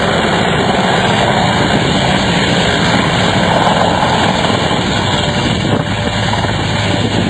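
Helicopter running steadily and loudly, its rotor chop and engine noise close to the microphone.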